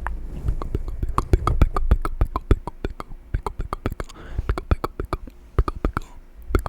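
Close-miked ASMR mouth sounds: a quick, irregular run of wet clicks and pops, many a second, over a low rumble of breath near the microphone.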